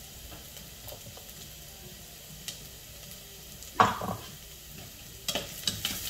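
Sliced onions sizzling in oil in a stainless steel pot, a steady faint hiss. A spoon knocks and scrapes against the pot once, loudly, about four seconds in, then clicks against it a few more times near the end as the onions are stirred.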